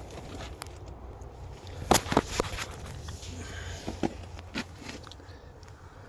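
A few sharp knocks and clicks of handling around a car's interior, the loudest about two seconds in, over a low steady rumble.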